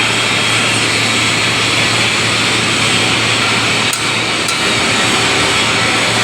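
Automatic submerged-arc pipe welding equipment running: a steady, loud hiss with a constant low electrical hum underneath.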